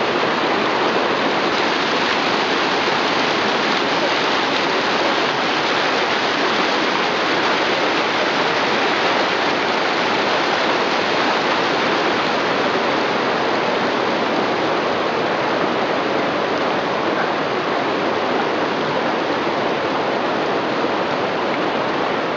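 Rapids on the Southern Bug river: fast shallow water rushing steadily over and between boulders.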